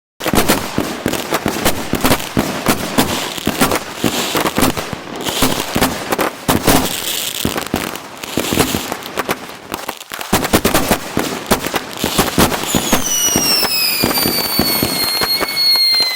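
Consumer fireworks going off in quick succession, a dense run of bangs and crackles. About thirteen seconds in, a whistle joins, falling slowly in pitch.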